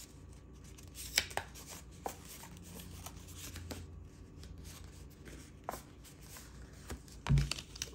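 A scratch-off crossword lottery ticket being scratched and handled: short, scattered scrapes and taps over a faint low hum.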